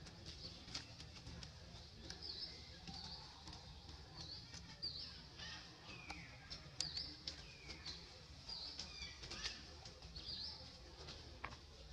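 Faint, high-pitched animal chirps repeating about once a second, with a few falling squeals in the middle, over scattered small clicks and rustles.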